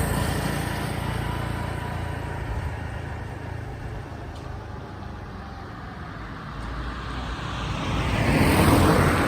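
Road vehicle noise: a steady low engine rumble, with a vehicle passing close near the end, its sound swelling and then fading.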